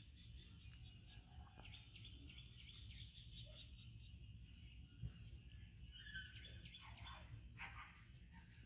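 Quiet outdoor ambience: scattered faint bird chirps and a few short falling calls over a steady low rumble, with one small tick about five seconds in.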